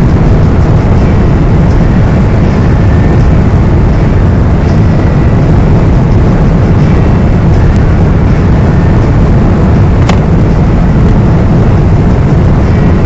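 Loud, steady rush of wind and road noise inside a car at highway speed, with wind buffeting the microphone. One sharp click about ten seconds in.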